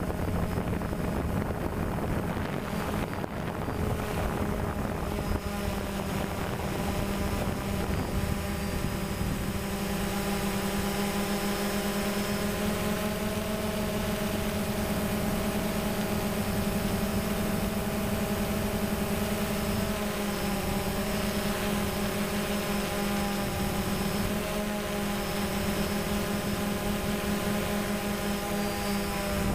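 DJI Phantom quadcopter's electric motors and propellers, heard close up from the camera on the drone: a steady multi-toned whine whose pitch drifts slightly up and down as the drone manoeuvres.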